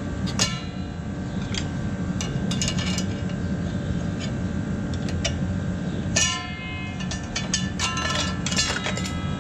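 Hand tools and steel parts clinking and clicking against the row unit of a John Deere 1760 planter as it is worked on: scattered sharp metallic clinks that ring briefly, the loudest near the start and about six seconds in, with small clusters of clicks in between. A steady low hum runs underneath.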